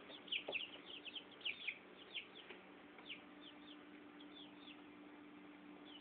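Tetra Tint chick peeping: a quick run of short, high, falling peeps through the first three seconds or so, then it goes quiet.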